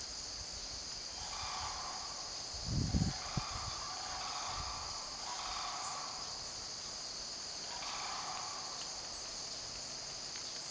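Steady high-pitched chorus of crickets and other insects, with calls of sandhill cranes sounding at a distance about every two seconds. A brief low rumble about three seconds in.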